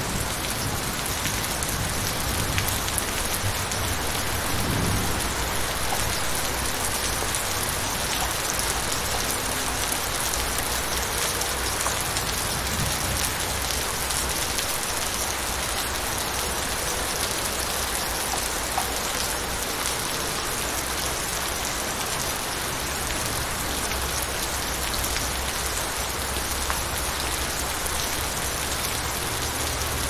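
Steady light rain falling, with low thunder rumbling underneath that comes and goes.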